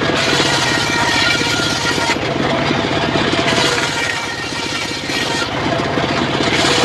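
Engine-driven mobile circular sawmill running steadily while ripping a teak log, the engine beating in a fast, even pulse.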